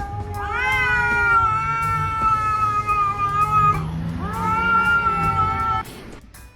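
A cat yowling in long, drawn-out calls. There are two held yowls, the first about three seconds long and the second shorter; each sweeps up at the start and then holds its pitch.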